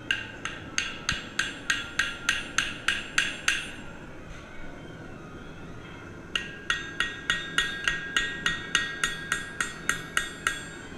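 Hand hammer striking the steel neck of a forged putter head to set its loft and lie angles, in two runs of about three blows a second: a dozen blows, a pause of nearly three seconds, then about fifteen more. Each blow rings with a bright metallic tone.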